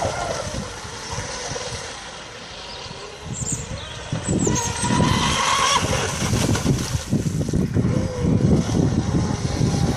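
Pro Boat Blackjack V3 RC boat's electric motor whining, its pitch wavering up and down with the throttle, over a rough low rushing noise that grows louder about four seconds in.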